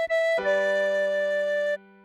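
Tin whistle playing the melody of a song over a low accompaniment note. The whistle holds a note, briefly re-tongues it, then moves to a new note about half a second in. That note stops near the end, leaving the low note fading.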